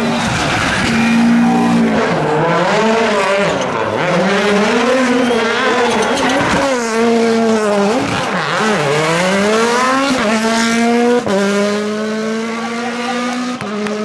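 Rally car engines driven hard, the revs rising and falling sharply again and again through gear changes and lifts, with some tyre squeal. Near the end one engine holds steady high revs for about three seconds.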